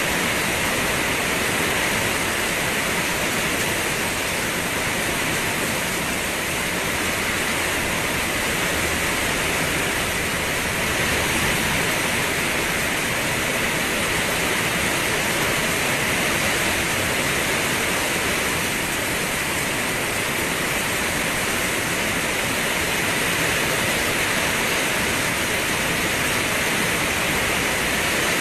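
Steady rain falling, an even hiss with no single drops standing out and no change in level.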